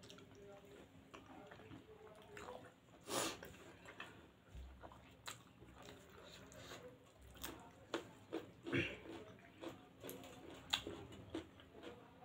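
Mouth sounds of two people chewing soft food (paneer momo dumplings and pasta): scattered wet clicks and lip smacks, with louder smacks about three seconds in and near nine seconds.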